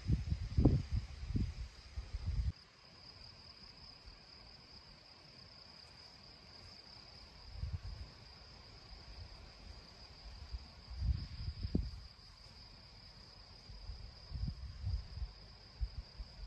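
Steady high-pitched chirring of meadow insects runs unbroken. Low rumbling gusts of wind on the microphone come and go over it, loudest in the first two seconds and returning briefly several times after.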